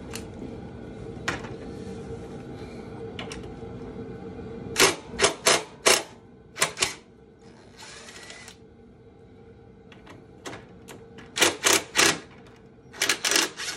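Hand ratchet clicking in several short bursts as it undoes the screws holding a motorcycle's rear passenger foot-peg bracket, over a steady low hum.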